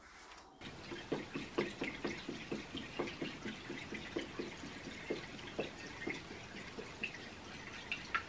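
Coolant glugging out of a plastic jug as it is poured into a tractor radiator's filler, in quick, irregular gulps. It starts about half a second in.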